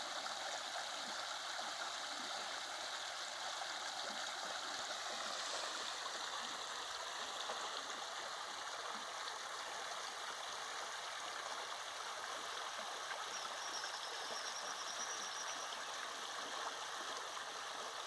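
Running water flowing steadily: an even rush with gurgling, like a stream.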